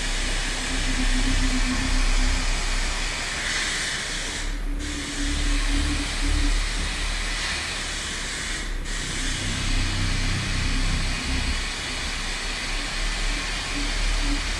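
Steady hiss of static, with short broken low hum fragments, cutting out briefly twice.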